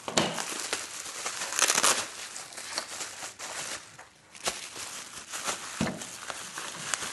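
Crinkling and rustling of packaging wrap as parts are handled and unwrapped, with scattered clicks and a couple of light knocks.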